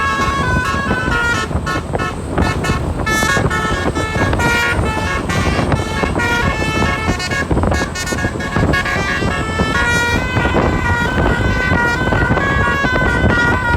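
Bus telolet horn, a multi-tone air horn playing a quick tune, its notes stepping up and down every fraction of a second over a steady low rumble.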